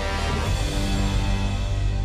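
Background theme music: held chords over a steady low bass pulse.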